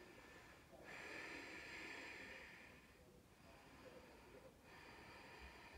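Near silence with faint breathing: one long exhale starting about a second in and lasting about two seconds, then softer breaths.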